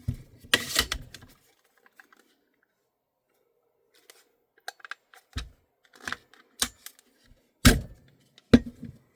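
Metal and plastic parts of an airsoft gas-blowback rifle clicking and knocking as it is handled: a short scrape about half a second in, a quiet pause, then a run of separate clicks and clacks, two of them sharper near the end.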